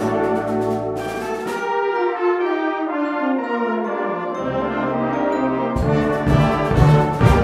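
Brass band music playing, with a long descending phrase a second or so in and percussion strikes at the start and again near the end.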